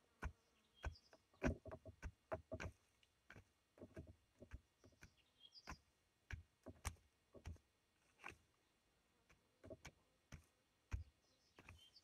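Wooden stick jabbing and scraping loose soil into a burrow entrance: faint, irregular short knocks and scrapes, a few a second.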